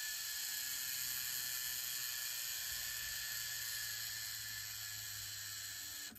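Revox B710 cassette deck fast-winding a cassette at high speed: a steady high whir and hiss from the spooling motor and reels, which eases slightly and then cuts off suddenly right at the end as the transport stops.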